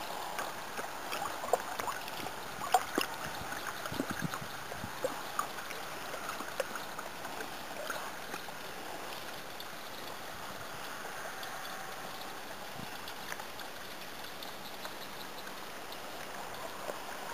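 Water sloshing and splashing as a dog stands in a small paddling pool and paws at the water, with scattered short splashes, more of them in the first few seconds, over a steady background hiss.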